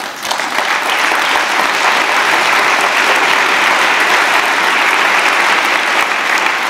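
Large audience applauding: a dense round of clapping that swells up at the start and then holds steady.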